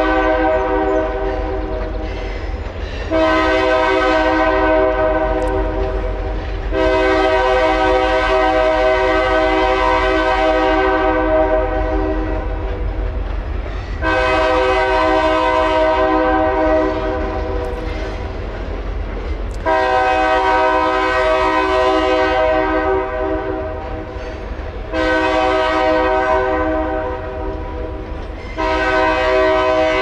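Freight train's locomotive horn sounding a series of blasts: one dying away at the start, then six more of roughly three to five seconds each with short gaps between, the longest about seven seconds in. Under the horn, a continuous low rumble of the freight cars rolling across the bridge.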